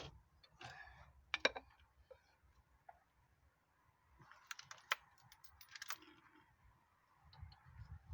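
Metal hand tools clinking and clicking as they are handled, in scattered short strokes: one sharper clink about a second and a half in, and a quick run of clinks around the five-second mark.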